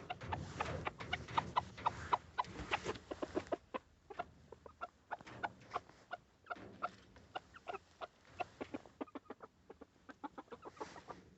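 A few chickens clucking in quick, short notes while they feed, many a second, with brief lulls.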